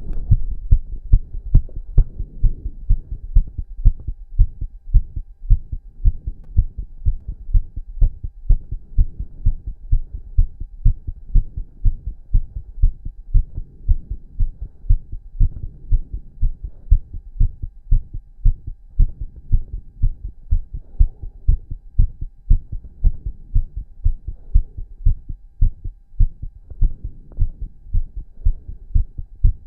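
A man's heartbeat, fast and strong after exercise, about two thumps a second, over a faint steady hum.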